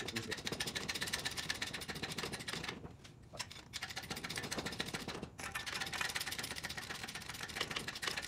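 Hand-pumped hydraulic bottle jack on a pipe bender being worked to bend aluminum pipe, with a fast, steady clicking that breaks off briefly about three seconds in and again about five seconds in.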